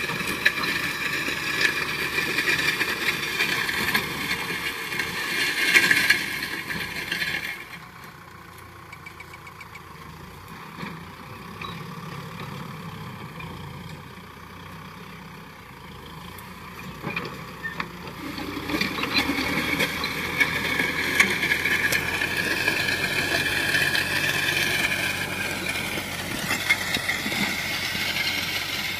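Kubota tractor's diesel engine running steadily as it pulls a disc harrow through dry soil. The sound drops suddenly to a quieter level about eight seconds in, then builds back up about ten seconds later.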